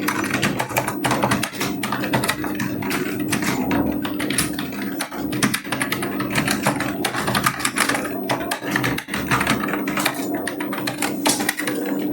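Several people typing fast on computer keyboards at once, a dense, irregular clatter of key clicks over a steady low hum.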